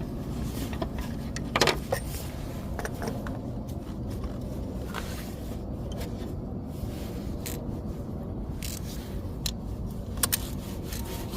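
Scattered light clicks and scrapes of the oil filter housing cap being fitted and threaded on by hand, over a steady low hum.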